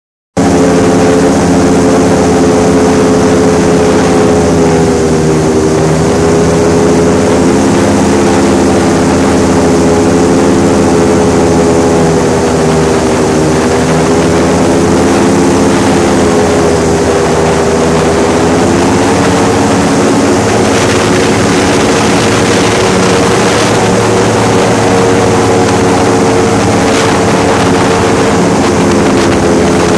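Airboat engine and its air propeller running loud and steady while the boat is underway. The pitch sags slightly and recovers a few times.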